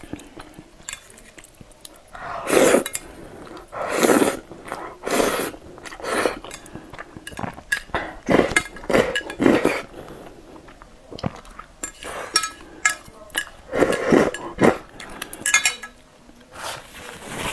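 Close-miked slurping and chewing of saucy instant noodles, a string of loud slurps each about half a second long, with chopsticks clicking against a ceramic bowl between them.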